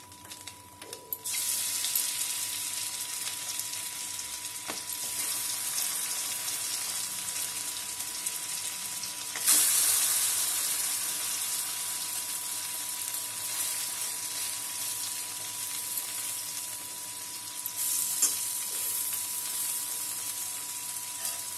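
Prawns frying in hot oil in a kadai, a steady sizzle that starts about a second in. It jumps louder about halfway through as more prawns go into the oil, and surges again near the end.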